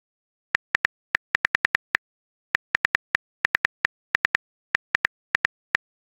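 Keyboard typing sound effect from a texting app: some thirty short, sharp clicks in uneven runs, several a second at their quickest, with silence between them.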